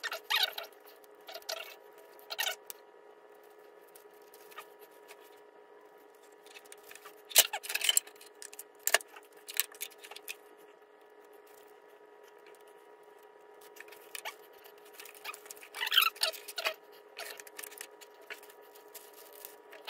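Hands handling a robot dog in its plastic carrying case: scattered rustles, clicks and taps, with louder bunches of them about seven to nine seconds in and again around sixteen seconds. A faint steady hum runs underneath.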